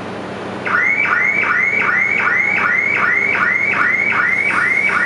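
Electronic warning alarm sounding a short rising chirp over and over, about two and a half times a second, starting under a second in and cutting off at the end, over a steady background hum.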